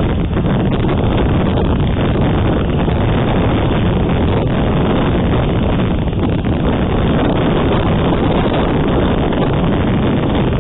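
Wind buffeting the outdoor nest camera's microphone: a steady, loud rushing noise with no breaks.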